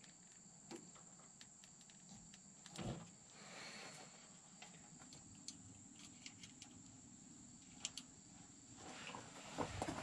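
Faint steady high-pitched insect trilling. Over it come scattered light clicks and a soft knock about three seconds in, from hands handling wiring and a clip-on test lead.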